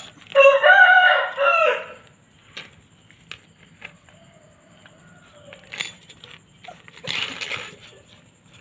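A rooster crowing once, one long call of about a second and a half. A short noisy rattle comes near the end.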